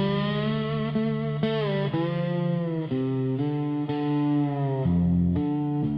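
Instrumental break of a dark country song: distorted electric guitar playing a slow lead line of held notes, some bending in pitch, over a sustained bass.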